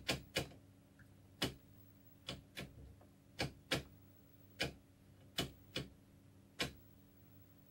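About a dozen sharp clicks, often in close pairs, from the front-panel rotary knob of a vintage Astor T25X black-and-white portable TV being turned through its detents. A low steady hum runs underneath.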